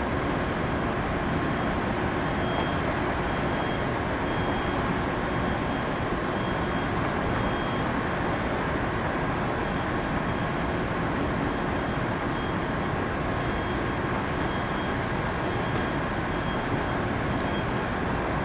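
Steady engine drone with a faint thin whine above it, holding level without rising or falling.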